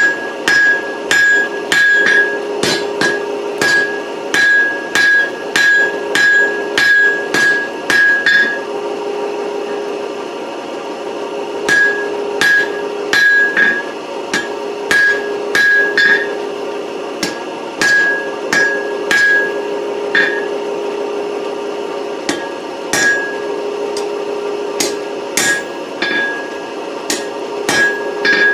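A heavy rounding hammer strikes a hot 4140 steel bar over the anvil horn to forge a finger-grip dish. The blows come about two a second, each with a short metallic ring, in runs broken by pauses of a few seconds. A steady hum runs underneath.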